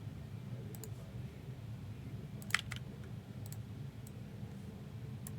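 A few scattered sharp clicks, the loudest a close pair about two and a half seconds in, over a steady low hum.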